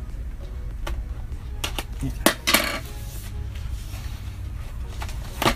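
Scissors clicking at the tape of a cardboard box, then set down on a wooden table with a metallic clink about two seconds in. A short scrape of the cardboard box being handled follows, and a knock near the end as the box is set down.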